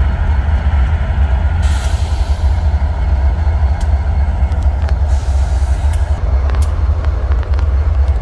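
Diesel locomotive running with a loud, steady low rumble, with two short hisses of released air, about two seconds in and again about five seconds in.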